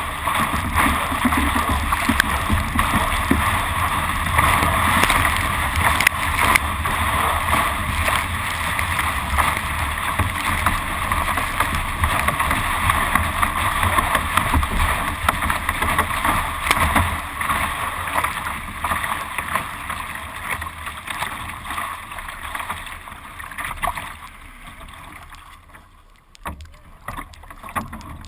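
Water rushing and splashing along the bow of a Carbonology Atom surf ski running through small waves, with a low rumble of wind on the microphone. The rush dies down near the end.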